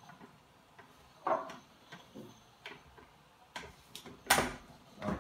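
Scattered clicks and light knocks of a blender jug being handled on its base and worked loose to lift it off, with the loudest knock about four seconds in.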